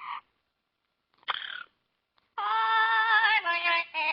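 Parrot singing: two short calls, then from about two and a half seconds in long held notes in a voice-like tone, with a quick warble partway through.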